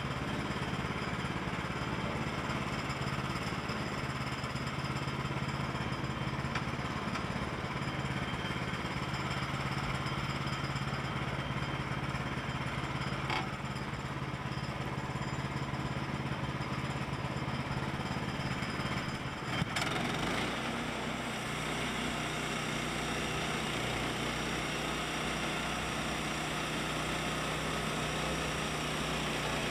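Woodland Mills HM122 portable band sawmill running, its gas engine driving the band blade at a steady pitch. About two-thirds of the way through there is a brief knock and the engine note shifts lower and settles as the blade goes into the log and starts cutting.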